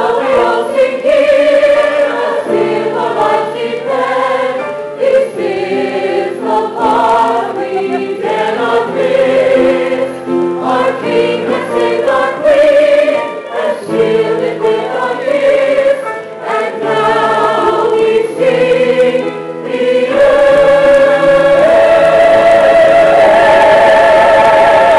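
Choir of men and women singing in harmony, ending on a long held chord through the last five seconds.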